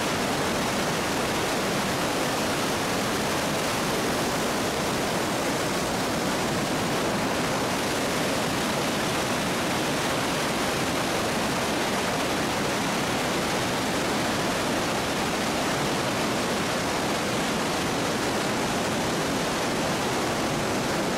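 Steady, even rush of the Krka waterfalls, water pouring over the cascades.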